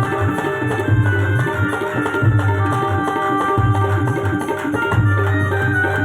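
Indian band music: a driving drum rhythm with a pulsing bass under held melody notes.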